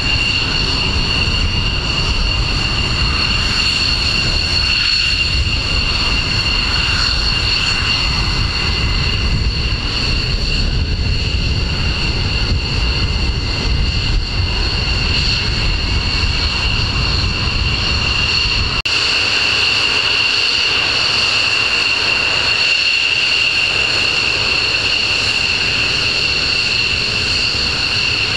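Jet engines of F-15C Eagle fighters at taxi power: a steady high-pitched whine over a low rumble. About 19 seconds in, the low rumble drops away abruptly while the whine continues.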